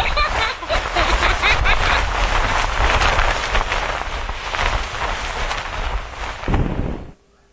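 Loud, dense rushing noise like a rain or storm sound effect, with a few brief pitched squeaks in the first two seconds. It cuts off abruptly near the end.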